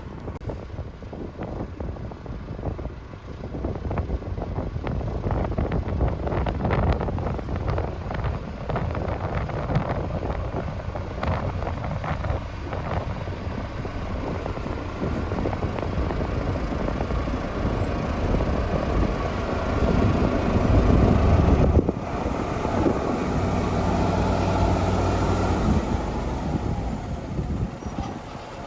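Heavy construction machinery, dump truck and bulldozer diesel engines, running and working, growing loudest about two-thirds of the way through before settling to a steady engine note.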